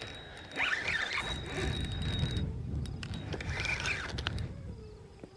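High squeaks from a fishing reel being cranked against a heavy fish, coming in short irregular bouts over a low rumble that lasts the first few seconds.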